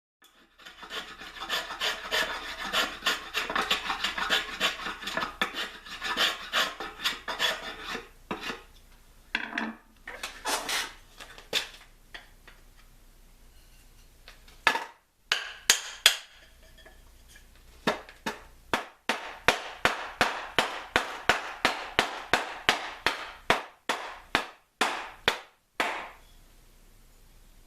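Rasping strokes on a teak hammer-handle blank being shaped by hand: a fast dense run at first, then slower separate strokes, settling into even strokes about two a second near the end.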